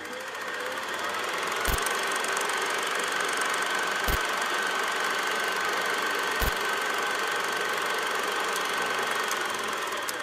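Old film projector running: a steady mechanical whirr with a faint high whine, and three dull thumps about two and a half seconds apart.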